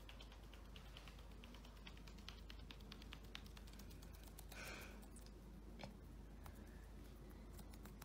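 Faint, irregular taps of a cockatiel's claws on a laminate floor as it walks, many small clicks, with one short soft sound about halfway through.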